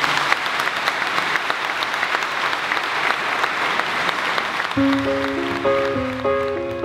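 Many people applauding, a dense patter of hand claps. About five seconds in, piano music starts with slow, held notes.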